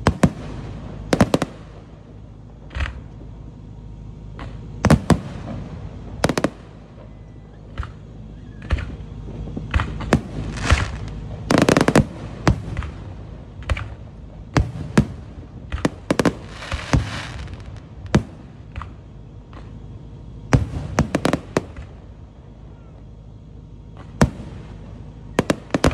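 Display fireworks firing and bursting: aerial shells and low ground-launched effects going off in an irregular string of sharp bangs, with denser stretches of rapid bursts about halfway through and again past two-thirds.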